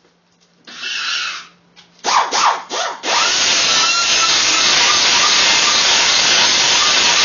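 Metalwork on a steel exhaust header: a short burst, a few sharp strokes, then from about three seconds in a steady harsh hiss, the sound of a power tool or welder working the metal.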